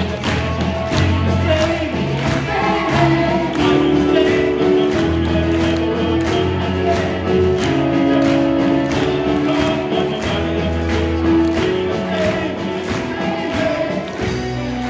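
Live band playing a song with singing: drum kit keeping a steady beat under electric guitar, bass guitar and keyboard.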